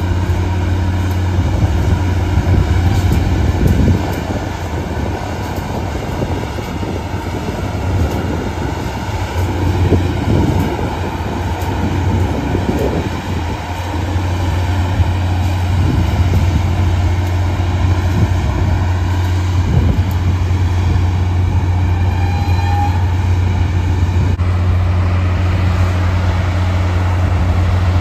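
Freight train of flatcars rolling slowly past, with irregular clanks and knocks from the cars over a steady low drone.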